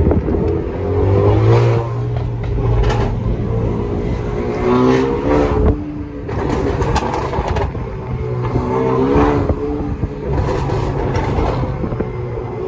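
Honda Accord 2.0-litre turbo four-cylinder with a Borla exhaust and PRL catted downpipe, revved several times in a few-second rhythm, with sharp pops and crackles from the exhaust between the revs.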